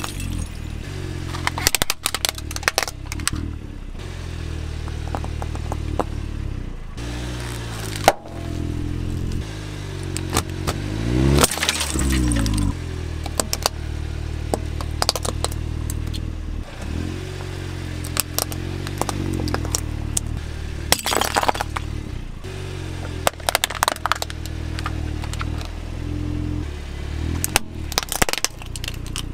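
A car tyre rolling slowly over small plastic toys and other objects and crushing them, with repeated sharp cracks and crunches. A steady low engine hum runs under it and rises and falls in pitch a few times.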